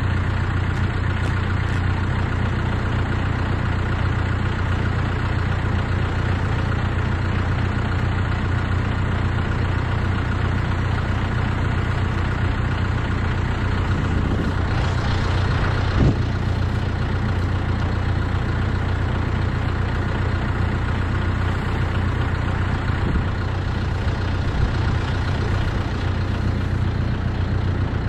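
An engine idling steadily with a low, even hum, and one short knock about halfway through.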